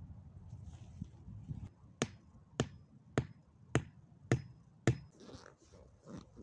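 A hatchet pounding a stake into the ground at the corner of a tarp shelter: six sharp knocks about half a second apart. Tarp fabric rustles before and after.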